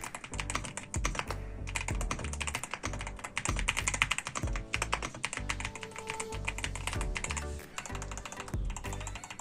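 Fast, continuous typing on the YUNZII AL65 aluminium-cased mechanical keyboard, a dense run of key clicks, over background music with a steady low beat.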